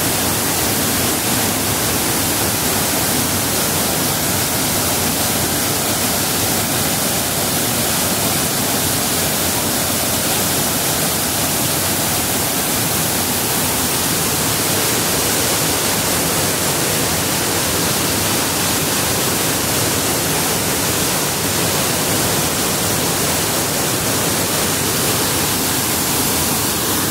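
Waterfall and river rapids rushing: a steady, unbroken noise of falling and flowing water.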